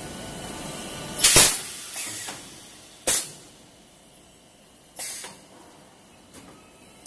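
Pneumatic valves and cylinders of an HDPE bottle blow molding machine venting compressed air: a steady hiss, then a series of short, sharp air blasts, the loudest about a second in, the last faint one near the end.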